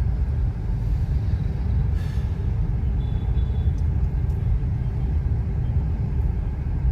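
Steady low rumble inside the cabin of a Maruti Suzuki Ignis creeping through traffic: its 1.2-litre four-cylinder petrol engine and road noise heard from inside the car.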